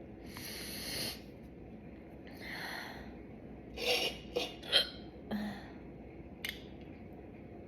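A woman's hiccups: breathy sounds in the first three seconds, then three quick sharp hiccups about four seconds in, the loudest sounds, followed by a small click.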